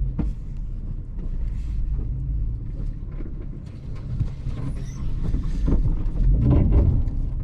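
Toyota FJ Cruiser driving, a steady low rumble with scattered knocks and rattles.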